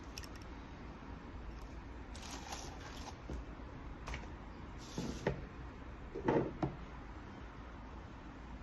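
Light handling noises, a few soft rustles and clicks, the loudest about six seconds in, over a faint low hum.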